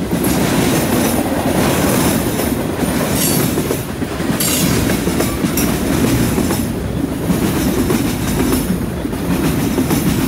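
A freight train's cars rolling past at close range: a steady heavy rumble of wheels on rail, with irregular clacks from the wheels running over the track.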